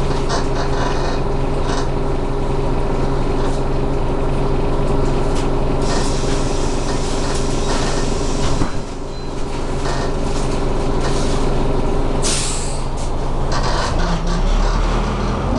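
Renault R312 city bus heard from inside the cabin: the diesel engine runs with a steady note under interior rattles. Just past halfway the engine note drops, a short hiss of air comes about three quarters of the way in, and near the end a heavy low rumble builds as the engine pulls.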